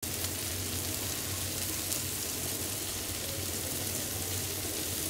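Mutton liver pieces frying on a hot flat tawa, a steady sizzle and crackle of oil.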